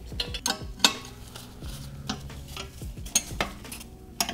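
Metal hand tools clinking and scraping on the bolts of a Volvo 2.5T short block as it is unbolted: a string of irregular sharp metallic clicks, the loudest a little under a second in.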